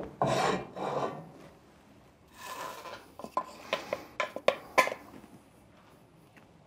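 Toasted malted barley being tipped and scraped with wooden spatulas out of a ceramic pan into an earthenware bowl: rushing, rasping slides of dry grain, then a run of short knocks and clicks of the wooden spatulas against the pan.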